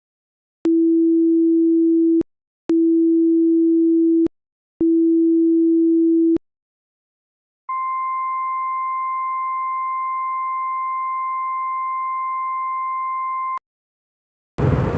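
Imitation Emergency Alert System tornado-warning tones: three long, low, pure beeps, then a single long steady high alert tone that cuts off suddenly. Just before the end a loud noisy sound begins.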